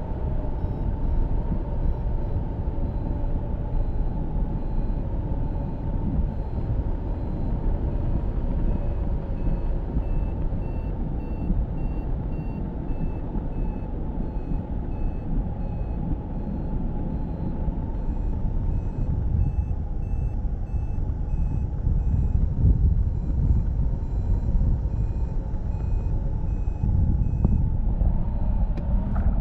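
Wind rushing over the microphone of a hang glider in flight, with the electronic beeping of a variometer in short repeated tones over a steady whine.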